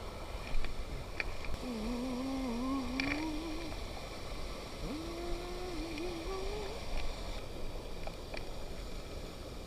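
A person humming: two short, wavering, low-pitched phrases a second or so apart, muffled as if through a camera's waterproof housing, with a few faint clicks.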